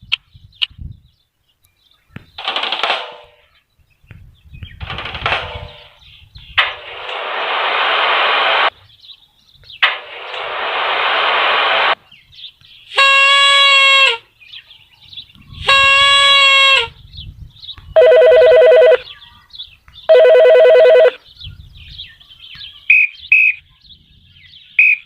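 A string of separate object sound effects, one after another. First come several short bursts of hissing noise, two of them about two seconds long. Then come two held ringing tones rich in overtones, two lower buzzing tones, and a few short high chirps near the end.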